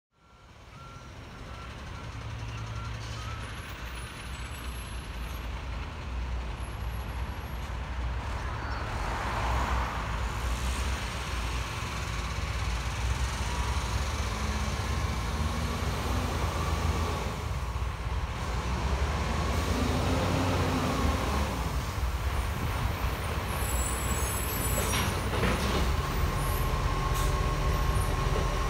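Garbage truck engine running, fading in from silence at the start and growing steadily louder as the truck draws near.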